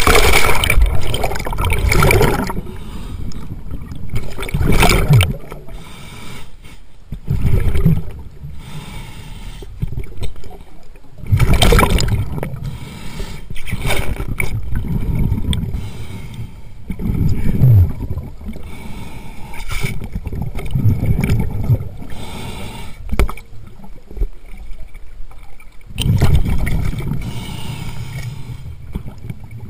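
A splash as the camera goes under, then underwater sound: a diver's exhaled breath bubbling out in loud gurgling surges every few seconds, with quieter water noise between.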